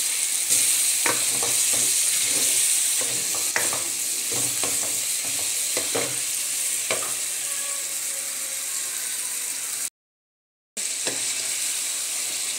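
Chicken, tomatoes and ground spices sizzling in hot oil in an aluminium karahi, with a spatula stirring and scraping and giving repeated short clacks against the pan. The masala is being fried in with the chicken. The sound cuts out completely for just under a second near the end.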